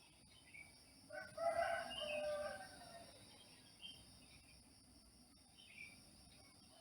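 A rooster crowing once, a drawn-out call of about two seconds starting about a second in, over a steady high chirring of insects.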